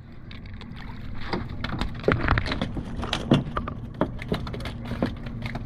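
Freshly landed sheepshead flopping on a boat's deck: a run of sharp, irregular slaps and knocks starting a little over a second in, over a low steady rumble.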